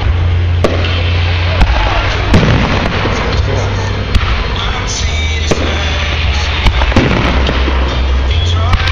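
Aerial fireworks going off: a string of sharp bangs and pops, roughly one or two a second, over a steady low rumble.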